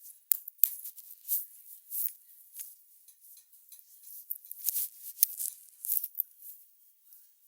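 Fingers and nails scratching and rubbing through hair on a scalp during a head massage, in quick irregular scratchy strokes, with one sharp click just after the start.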